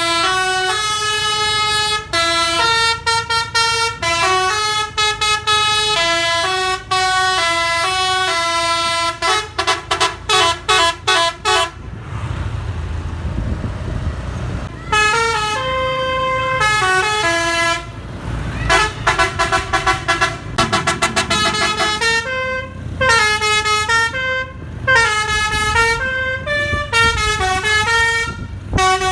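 Multi-tone telolet (basuri) bus horn played by hand like a melodica, note by note as a tune, with a run of quick staccato notes. About twelve seconds in, the horn stops for a few seconds and only a low engine rumble is heard. It then starts again, with rapid notes and notes that bend in pitch toward the end.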